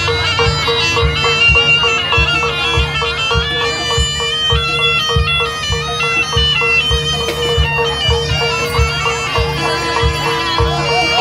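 Javanese jaranan gamelan accompaniment played live: a nasal reed trumpet (slompret) plays a wavering, ornamented melody over a held steady tone and a regular beat of drum strokes.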